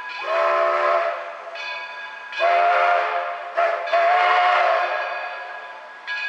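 Steam locomotive Edison's whistle blowing three blasts of about a second each, each one a chord of several steady tones.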